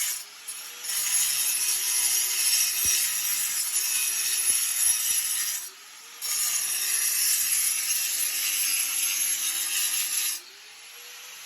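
Harsh, hissing tool noise of sawing or abrading, running in two long stretches with a brief break about six seconds in, stopping about ten seconds in.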